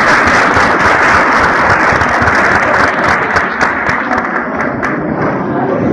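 Audience applauding, many hands clapping together in a dense, steady stream.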